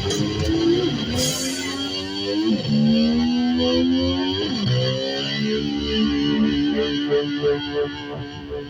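Distorted electric slide guitar imitating a motorcycle. Three times it slides up in pitch like an engine revving, then drops sharply as if shifting gear. It then settles into a pulsing repeated note that begins to fade near the end.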